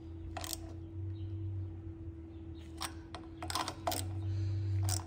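Socket ratchet clicking in short spells as the carburetor mounting bolts are drawn up snug to the intake, a few separate clicks with a quick run of them about three and a half seconds in, over a steady low hum.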